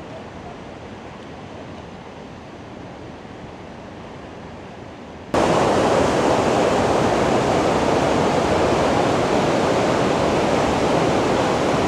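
St. Mary Falls, a waterfall, rushing steadily. About halfway through, the sound cuts suddenly to a much louder, closer rush of falling water.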